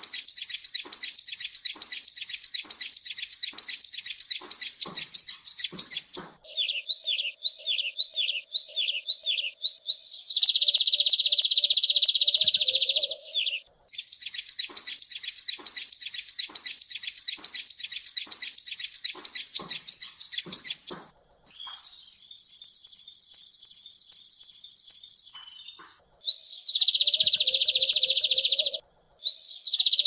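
Kolibri ninja (a sunbird) singing: a rapid high-pitched trill of chirps for about six seconds, then a run of short falling notes and a buzzy rattle, the rapid trill again, a high thin whistle over buzzing, and more short buzzy rattles near the end.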